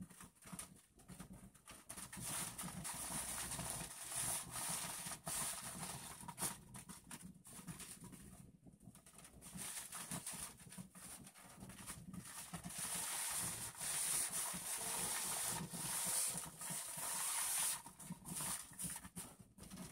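Handheld garment steamer hissing against a fabric curtain panel, steaming out a crease; the steam comes in uneven surges, with a brief break about eight seconds in and a louder stretch near the end.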